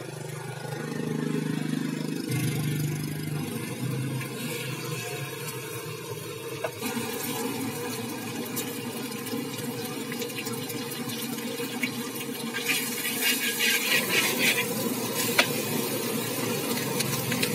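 Hot oil sizzling steadily in a wok as an egg fries and rice is stirred in, with a few sharp clinks of a metal spatula against the wok near the end.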